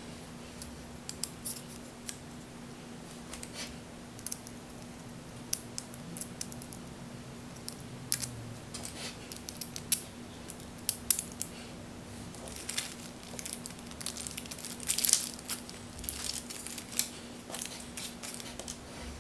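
Light, irregular clicks, taps and scrapes of small metal screws, standoffs and pliers being handled and tightened against a carbon-fibre drone frame plate, busiest about fifteen seconds in.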